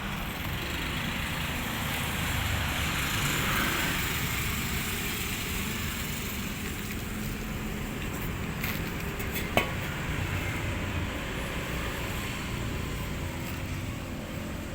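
Steady rumble of road traffic, swelling slightly a few seconds in, with one sharp click about two-thirds of the way through.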